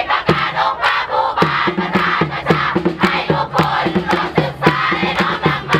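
Performance music with a fast, steady drumbeat of about three to four beats a second, with a crowd's voices shouting and chanting over it.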